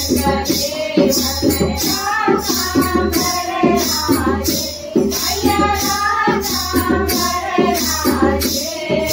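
Group of women singing a Hindu devotional bhajan together, keeping a steady beat with rhythmic hand clapping.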